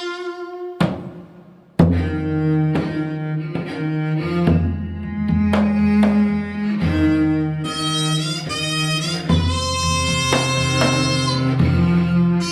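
Korean traditional chamber music: a dae-ajaeng (large bowed zither) plays low sustained bowed notes under sharp janggu (hourglass drum) strokes. About two-thirds of the way through, a Korean double-reed wind joins with high, bending notes.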